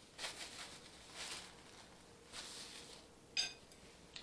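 A paper napkin rustles in three short bursts as hands are wiped. Then a metal fork clinks once against a glass plate with a brief ringing, about three and a half seconds in, and a smaller tap follows near the end.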